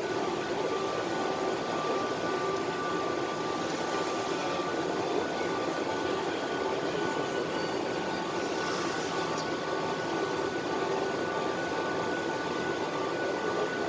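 Mazak Vortex Horizontal Profiler's automatic pallet changer moving its large pallet table: a steady mechanical running noise with faint steady whine tones.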